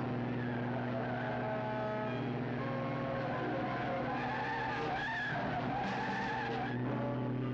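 Two sports cars, a Triumph Spitfire and an Austin-Healey, racing: engines droning steadily at speed, with tyres squealing through the bends in a wavering whine from about four seconds in until near the end.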